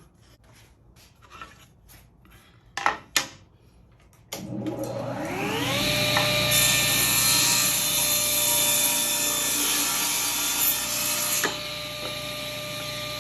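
Table saw switched on about four seconds in, its motor whine rising as the blade spins up and then holding steady. The blade rips a narrow strip of scrap wood for about five seconds, a loud hissing cut, then spins free again. A couple of knocks come before the saw starts.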